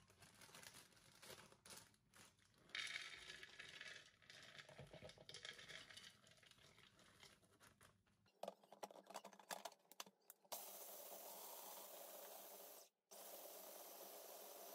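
A plastic bag of shelled pistachios crinkling as the nuts are poured into a food processor bowl. From about ten seconds in, the food processor runs steadily grinding the pistachios, cutting out once briefly.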